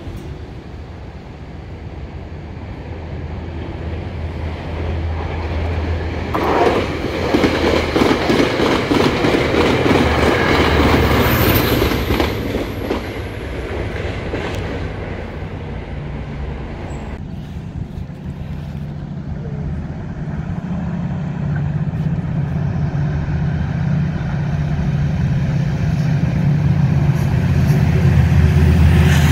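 A train passing on the rails, with rumble and rapid clickety-clack of wheels over the rail joints and a high whine falling in pitch midway. Then the diesel locomotive of an EXO commuter train approaches, its engine drone growing louder toward the end.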